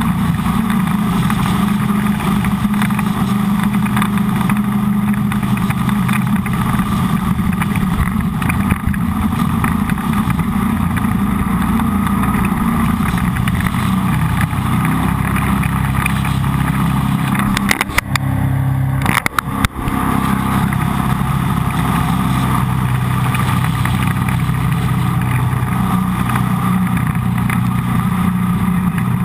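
Jet boat engine running steadily under way on the river. About two-thirds of the way through there are a few sharp clicks, and the drone briefly dips.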